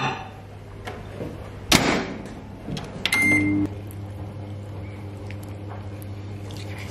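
Microwave oven being started: the door shuts with a loud knock, a short beep sounds about three seconds in, then the oven hums steadily as it runs.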